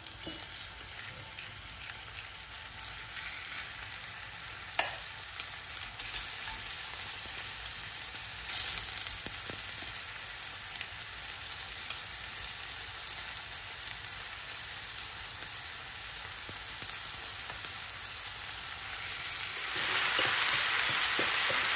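Curry-marinated goat meat sizzling in hot oil in an enamelled pot as pieces are added one by one, the sizzle growing louder in steps as the pot fills and jumping up sharply near the end. A few light knocks of the fork and meat against the pot.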